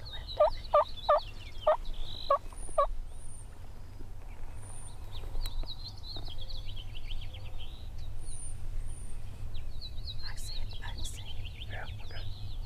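Turkey calls: a run of six loud, evenly spaced calls in the first three seconds, then quieter rapid rattling calls later on, with small birds chirping high above.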